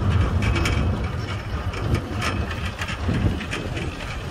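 Steady low rumble of a plane-shaped tourist cable ride running along its overhead steel cable, with wind on the microphone and a few light clicks. The rumble eases a little after about a second.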